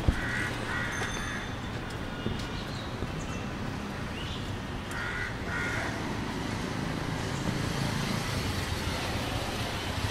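Busy street ambience with a steady low rumble of traffic. A bird's harsh call comes in two quick pairs, about half a second in and again about five seconds in.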